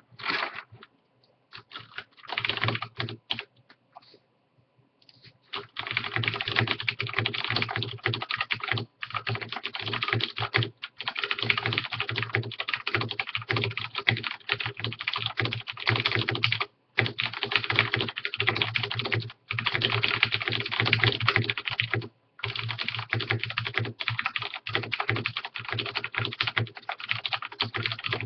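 Typing on a Cooler Master Quick Fire Rapid mechanical keyboard with linear Cherry MX Black switches. A few scattered keystrokes come first, then fast continuous typing starts about five seconds in and runs on with only brief pauses.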